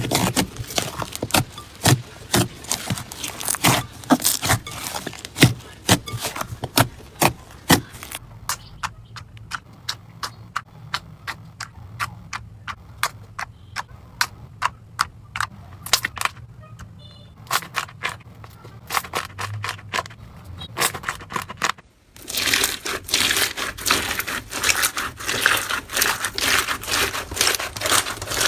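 Slime being squeezed and worked by hand, giving sharp crackles and pops. The popping thins out and goes quieter for a stretch in the middle. About 22 seconds in, an abrupt cut brings in a dense, crunchy crackling.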